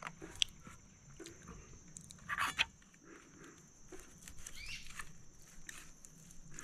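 A knife cutting and pulling apart a fire-roasted whole chicken in a small metal pan: light clicks and scrapes of the blade against the pan and the meat, with one louder scrape about two and a half seconds in. A steady high-pitched hum runs underneath.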